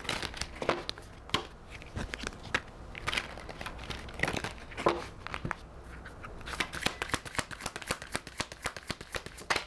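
A deck of tarot cards being shuffled and handled: a string of quick card clicks and slaps that becomes a fast, dense run over the last three seconds.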